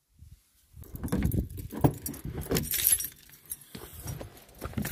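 Camping kit being handled in an open car boot: rattling and clinking with a few sharp knocks, starting about a second in and easing off after about three seconds.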